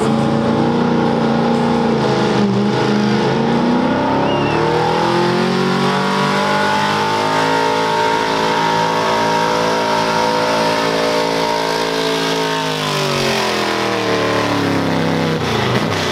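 Big-block V8 of a mid-1960s Chevrolet pickup truck pulling a weight sled: the revs climb over the first six seconds or so, hold high and steady through the middle of the pull, then fall away as the pull ends.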